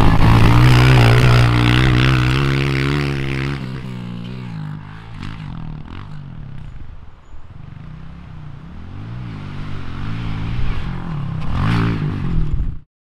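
Honda CRF pit bike's four-stroke single-cylinder engine passing close and then fading as it rides away. It comes back with the revs rising and falling over the jumps and grows louder, then cuts off just before the end.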